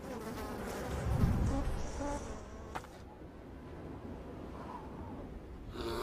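A buzzing, insect-like drone with short tonal bits over it, a low rumble about a second in and a sharp click near three seconds.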